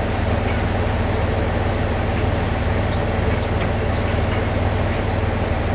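Diesel locomotive engine idling, a steady low rumble with an even hum.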